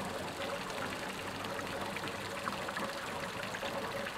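Water running steadily from a village fountain's spout into its basin.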